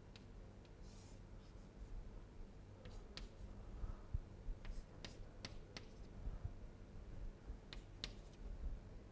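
Chalk on a blackboard: short scratching strokes and sharp taps as lines, arrowheads and letters are drawn, over a low steady hum.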